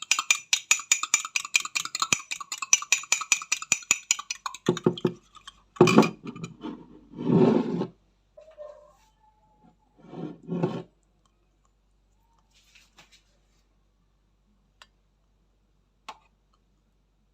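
Kitchen utensil clinking against a mug or dish: rapid, even clicking for the first four seconds or so, as in whisking or stirring, then a few louder knocks and clatters, and a few faint clicks near the end.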